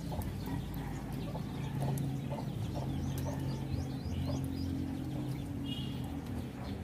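Chickens clucking nearby, with many short, high, rising chirps scattered throughout, over a steady low hum.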